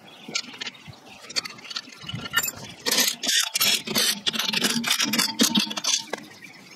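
Cordless drill with a socket spinning lug nuts onto the wheel studs of a brake drum, with a run of loud metallic clicking and rattling from about three seconds in. Quieter clinks of the nuts and tools being handled come before it.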